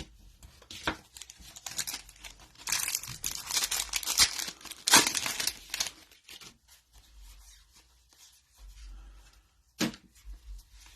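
A football trading card pack wrapper being torn open and crinkled in the hands, the tearing loudest about halfway through, followed by quieter rustling and a single short click near the end.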